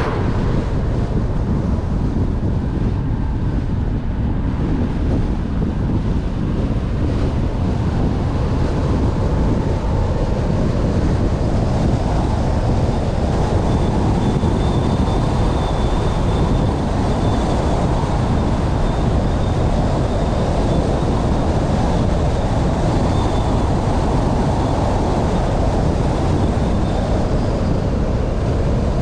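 Steady rumble of road and wind noise from a car driving along a road, unbroken throughout.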